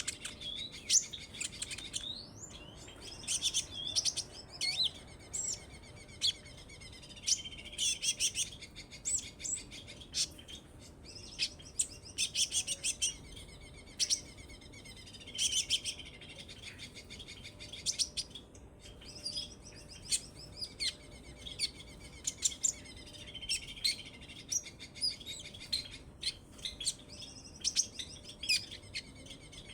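Olive-backed sunbird (kolibri ninja) singing: repeated bursts of high, fast chirps and twittering trills every second or two, with short sharp ticks between them.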